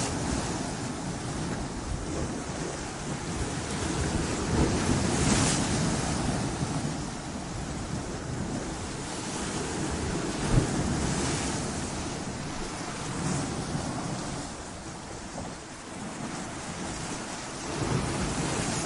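Sea waves washing in over rocks: a continuous rush of surf that swells every few seconds, with a brief sharp knock about ten and a half seconds in and a louder surge near the end.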